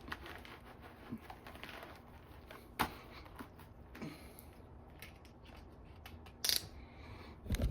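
Quiet scattered clicks and rustles of handling, with a sharper click about three seconds in and another about six and a half seconds in.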